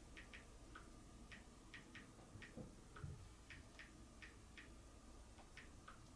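Faint, irregular light clicks and taps, about two a second, from a Blu-ray box set's plastic case and disc holders being handled, with a soft low thump about three seconds in.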